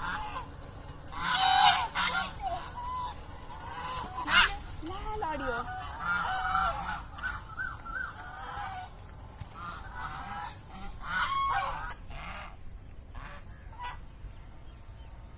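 Ducks quacking in irregular bursts of nasal calls, with the loudest calls about a second and a half in, around four seconds and around eleven seconds, and quieter chatter between them.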